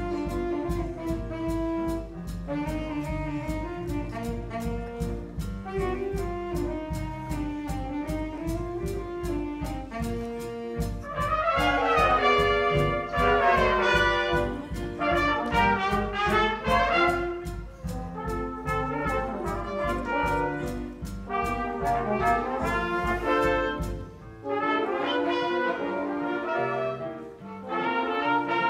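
Student jazz band playing: clarinet and horns carry the tune over a steady beat. The beat drops out about four seconds before the end while the horns play on.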